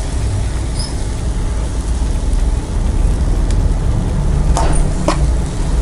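A serving utensil clinking twice against the plate or pan near the end as fried noodles are served, over a steady low rumble.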